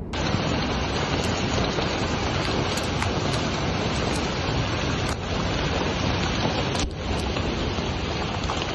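Steady rushing noise of heavy rain and a flash flood of muddy water pouring down a street after a hailstorm.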